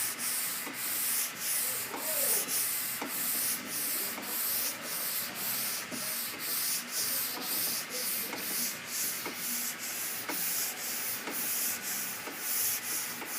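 Long hand sanding board with sandpaper being pushed back and forth over a primed car body panel in even strokes, about two a second, block-sanding the primer to show highs and lows.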